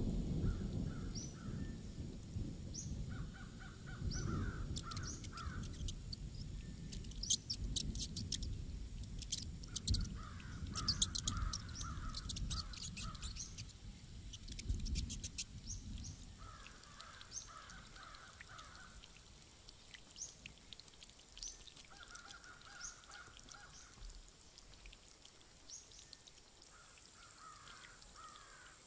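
Crows cawing in short series over a low rumble of thunder that dies away about sixteen seconds in, with small birds chirping and bursts of fast high clicking in the middle.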